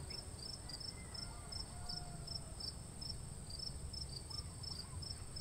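Faint insect chirping: short high chirps about three a second over a steady high-pitched trill.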